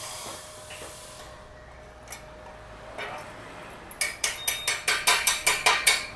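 A hammer rapidly tapping slag off a fresh stick-weld bead on steel, about five sharp metallic strikes a second, starting about four seconds in; the slag comes away easily. A steady hiss fades out within the first second.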